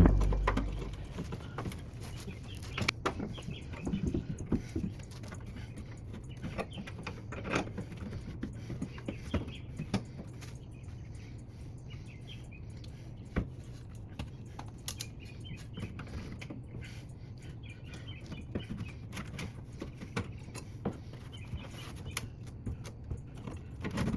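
Scattered light clicks and knocks of tools and parts being handled, over a low steady hum.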